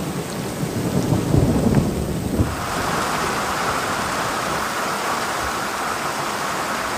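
Low rumble of thunder for the first two seconds or so, then heavy rain pouring down onto the swamp water in a steady, dense hiss.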